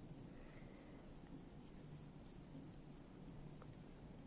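Potter's knife scoring leather-hard grogged porcelain clay: a quick run of faint scratches, several strokes a second, roughening the seam so it can be joined with slip.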